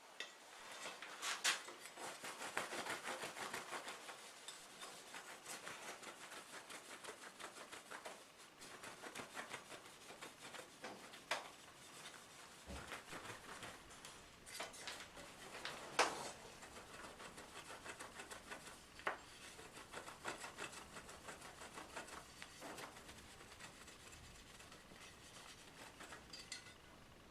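Faint rubbing and scraping by hand, in irregular strokes, with a few sharp light clicks and knocks.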